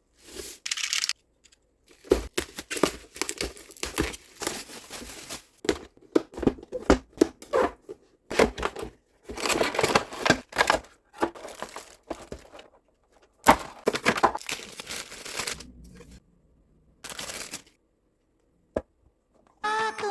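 Packaging of a toy prize figure being handled, torn and crinkled in irregular bursts, with sharp clicks and pauses in between.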